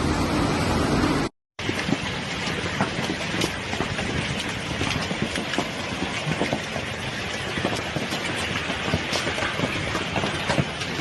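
Heavy hail pelting down: a dense, continuous clatter of hailstones striking surfaces, with many sharper individual hits standing out. The sound drops out completely for a moment about a second and a half in, then resumes.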